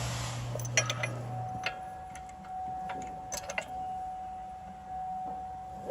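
Scattered light metallic clicks and clinks as a bolt and hand tools are worked at a rear brake caliper, over a steady thin high tone. A low hum cuts off about a second and a half in.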